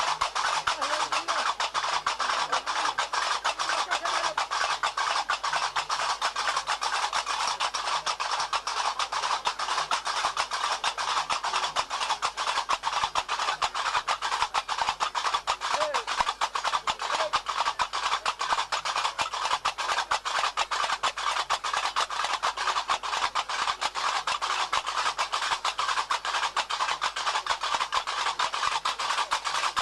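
Fast, dense drumming of dance music, running on without a break as a continuous rapid beat.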